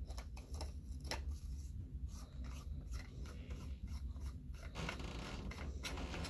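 Hands handling a metal lightsaber hilt: scattered light clicks and rubbing, with a longer scratchy stretch from about five seconds in, over a low steady hum.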